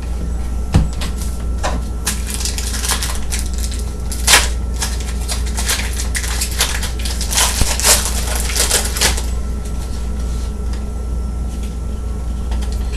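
Trading-card pack wrappers crinkling and tearing, with cards being handled, in irregular bursts of crackly rustling and a few sharp clicks over a steady low hum.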